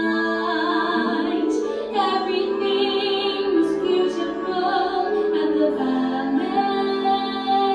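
Three women singing a show tune together live into microphones, amplified through the room's PA, their layered voices holding long notes.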